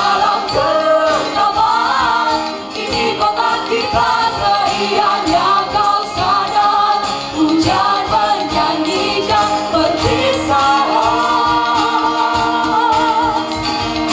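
A group of young singers with handheld microphones singing a poem set to music together, several voices sounding at once through the hall's amplification.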